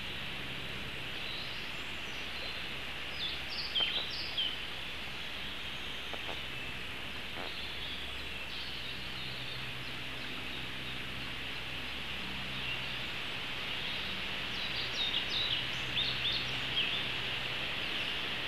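Steady outdoor hiss with short, high bird chirps in two brief clusters, one about four seconds in and another near the end.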